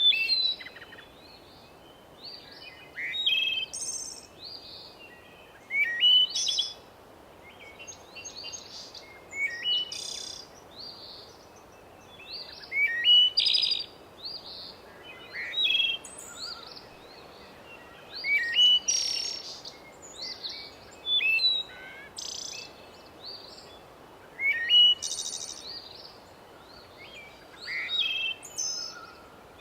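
Birds singing in a forest: short chirping phrases repeating every two or three seconds over a faint steady background hiss.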